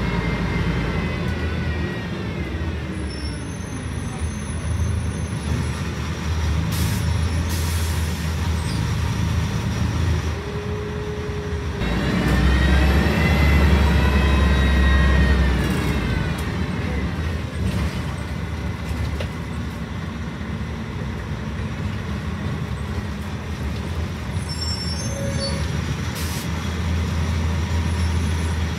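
Scania L113CRL city bus's rear-mounted diesel engine running, heard from inside the passenger cabin as the bus drives. A whine falls away over the first few seconds, and about halfway through the engine and driveline rise together in a climbing whine as the bus pulls away, the loudest part.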